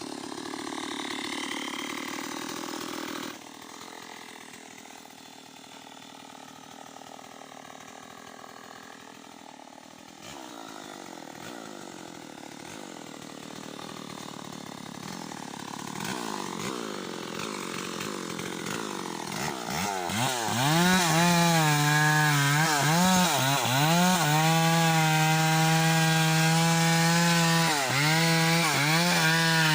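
Stihl two-stroke chainsaw cutting a teak trunk. It is quieter for the first part, then louder from about two-thirds of the way through, held at high revs with the engine pitch dipping again and again as the chain bites under load.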